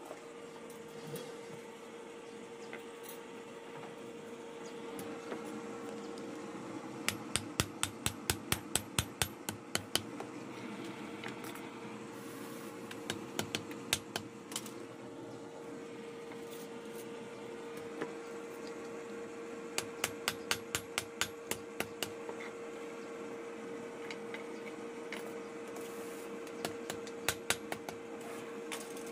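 Hand hammer beating a hot steel sickle blade resting on a wooden block, in four bursts of rapid blows, about four a second. A steady hum runs underneath.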